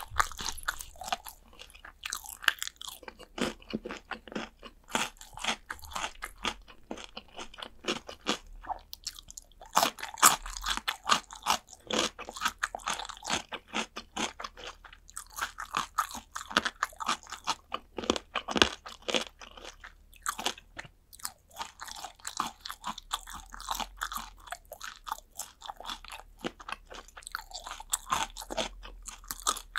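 Close-miked eating of Korean fried chicken drumsticks: crisp coating crunching between the teeth, with chewing and biting, many irregular crunches a second throughout.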